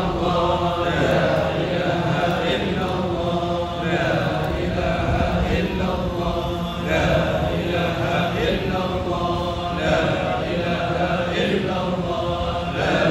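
Congregation of voices chanting an Arabic religious recitation in unison, in steady repeating phrases.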